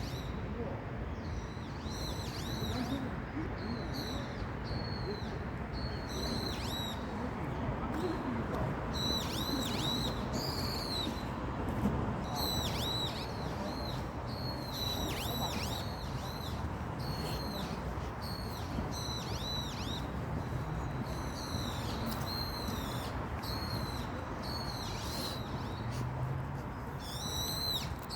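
Small birds chirping: short, high, arched notes repeated in quick clusters, over a steady background rush of noise.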